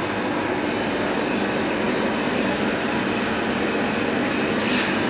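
Two-flavour slush machine running steadily, its spiral augers churning the frozen slush while the cooling compressor keeps it freezing: an even mechanical hum and rumble.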